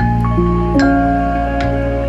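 Gentle background music: sustained low notes under soft struck, bell-like melody notes.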